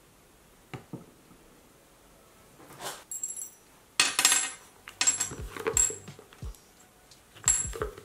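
Close-up handling sounds of a leather-wrap journal: a couple of light taps, then the journal is set down on the table with a knock about four seconds in, and its metal key charm and wrap cord clink and rattle as the hands move it.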